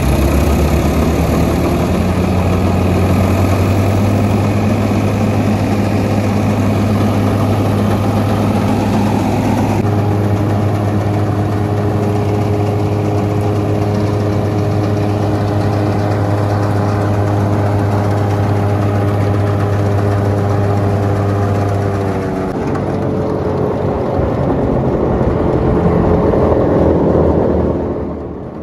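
Farmtrac tractor's diesel engine running steadily while driving a Chaany 2100 straw reaper that cuts stubble and blows the straw out through its delivery pipe. Past the middle the deep engine drone drops away, leaving a whirring hum that fades near the end.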